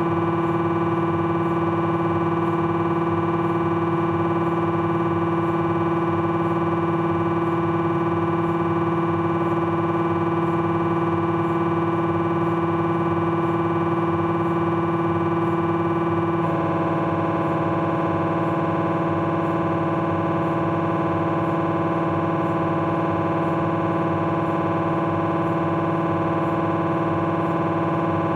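Philips 1.5 T MRI scanner's gradient coils buzzing during a T1 axial fat-saturated pulse sequence: a steady, loud, multi-pitched electronic drone. About 16 seconds in, its tone changes abruptly.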